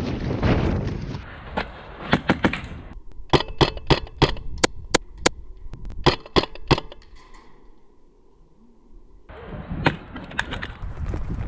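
Airsoft rifles firing single shots: a few sharp cracks, then a quick run of about eight evenly spaced shots, three more, and two near the end.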